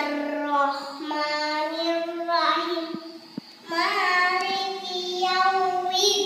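A young girl chanting Arabic prayer recitation in a sing-song melody, holding long notes, with a short pause a little past halfway.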